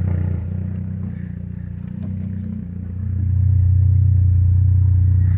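Saab 9-3's engine running steadily with a low hum, growing louder about three seconds in.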